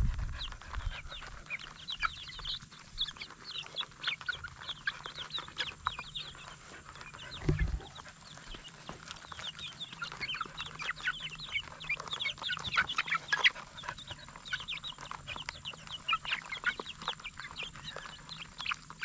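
A flock of young chickens cheeping and clucking steadily while pecking feed from a plastic trough feeder, with sharp pecking clicks among the calls. A single low thump about halfway through.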